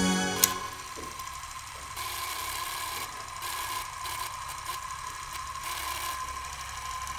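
Music fading out at the start, a sharp click about half a second in, then a small machine running: a steady high hum with a light rattle and scattered ticks.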